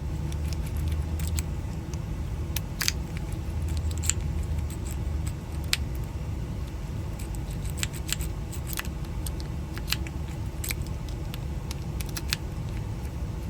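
Irregular small metallic clicks and taps of keys and door-lock parts being handled, over a steady low rumble.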